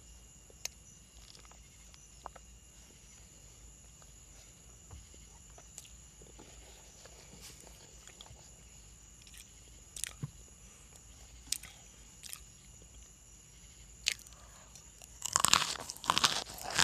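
Someone biting and chewing chunks of dry, crisp cornstarch: mostly quiet with a few scattered clicks, then loud, rapid crunching starting about fifteen seconds in.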